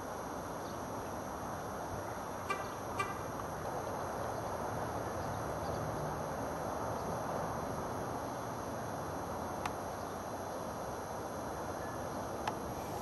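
Steady outdoor background rush, with a few short sharp clicks: two close together about two and a half seconds in, then single ones near ten seconds and near the end.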